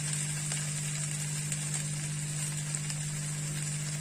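Sliced cabbage, carrot and pepper sizzling steadily in hot oil in a frying pan, with a few faint crackles, over a steady low hum.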